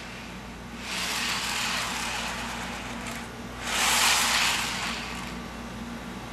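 Model railroad freight cars rolled by hand along a curved section of track, their wheels making a hissing rumble on the rails. The sound swells twice and is loudest about four seconds in, as the cars pass over the rail cut, where glue and track nails hold the rails.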